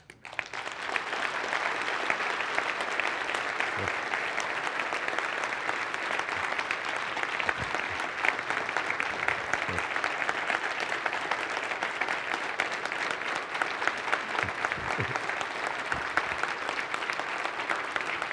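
Large audience giving a standing ovation: dense, steady applause of many hands clapping, starting suddenly at once and holding at an even level throughout.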